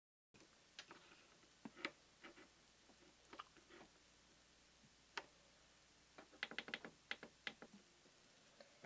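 Faint clacking of Yamaha digital piano keys pressed by hand: scattered single clicks, then a quick run of about eight clicks a little past the middle, with little or no note sounding.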